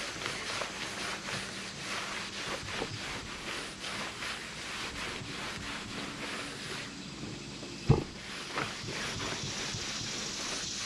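Microfiber towel rubbed back and forth by hand over a truck's painted hood, wiping on a coat of quick detailer spray, in short even strokes about three a second. There is a single knock about eight seconds in.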